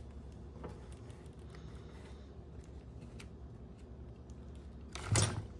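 Faint small clicks and ticks of hands handling small parts and tools of an RC truck's rear axle assembly, with one brief louder burst of noise about five seconds in.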